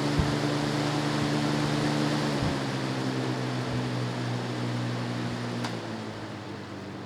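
Lasko 3743 20-inch box fan running on high: a steady rush of air over a low motor hum. Near the end there is a click, after which the hum stops and the sound drops quieter.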